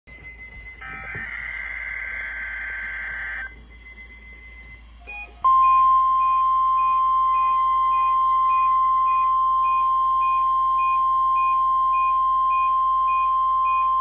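NOAA Weather Radio test signal through a small weather-alert radio's speaker: a few seconds of warbling digital SAME header data, then after a short pause the steady 1050 Hz warning alarm tone, held for about nine seconds. Faint short beeps pulse about twice a second over the tone.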